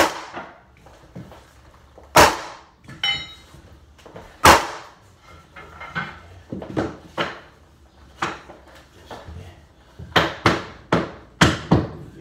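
Hardwood floor boards being handled and knocked into place: a string of sharp, irregular wooden knocks and clacks, with a quick run of several near the end.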